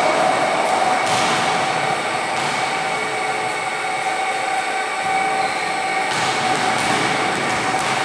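Steady gym room noise: a continuous hum with a rushing haze, from the large pedestal fans running in the gym.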